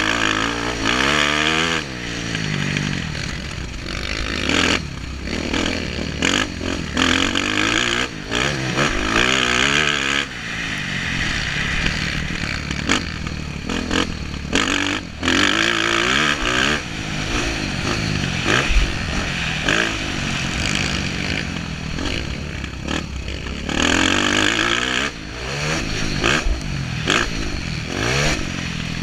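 Dirt bike engine under hard riding, its pitch repeatedly climbing as it accelerates and dropping as the rider backs off. Frequent sharp rushes and knocks of noise are mixed in.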